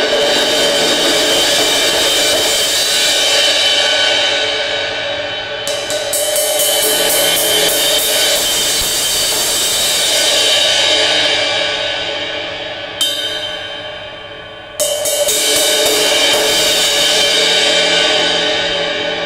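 Zildjian 20-inch A Custom Rezo crash cymbal played with a felt mallet in a sound test after its crack has been cut out. It gives a sustained shimmering wash that swells and fades, renewed by fresh strikes about 6 seconds in and again about 15 seconds in.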